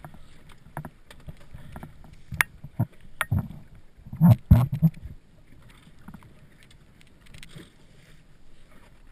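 Knocks and thumps of dive gear being handled on the deck of an inflatable boat: a few sharp knocks two to three seconds in and the loudest cluster of thumps around four to five seconds in, over a low steady rumble of wind and water.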